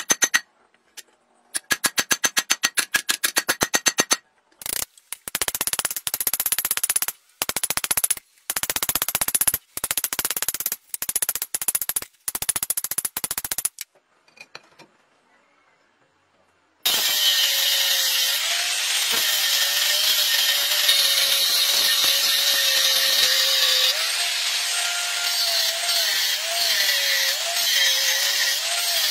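Hammer blows on red-hot steel over a steel anvil block, in fast runs broken by short pauses, the steel ringing with each strike. After a few seconds of near silence, an angle grinder cuts steel plate from about 17 seconds in: a steady grinding noise with a motor whine that wavers in pitch as the load changes.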